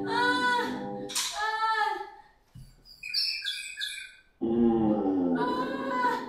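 Human voices dubbing a cartoon character in pain, wailing and moaning in long pitched cries. About three seconds in, a short run of high chirping tweets breaks in, then the moaning resumes.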